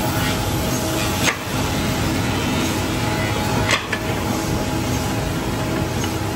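Industrial woodworking machines running with a steady drone and hum, broken twice by a sharp knock or clack, about a second in and again near four seconds in.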